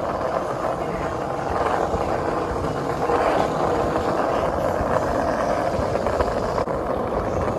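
Skate wheels rolling on street pavement, a steady rolling noise with no let-up.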